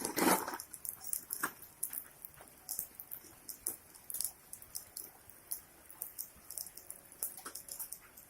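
Rain dripping and pattering in scattered drops, with a short, loud noise at the very start.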